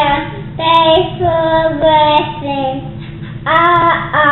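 A small boy's voice saying grace before a meal in a drawn-out sing-song, short phrases of held notes with brief breaks, then a pause and a higher, rising phrase near the end.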